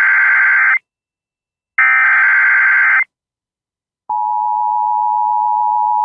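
Emergency Alert System SAME header tones announcing a severe thunderstorm warning. A burst of screechy data tones ends near the start and a second burst follows about two seconds in. Then the steady EAS attention tone begins abruptly about four seconds in.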